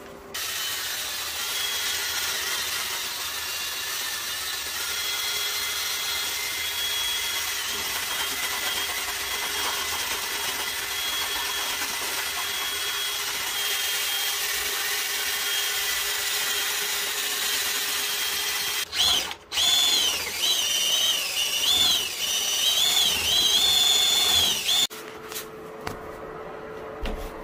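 Handheld power drill spinning a paddle mixer through self-leveling cement slurry in a plastic bucket: a steady motor whine that stops briefly about two-thirds of the way in, then comes back louder with its pitch rising and falling as the speed changes, and drops away near the end.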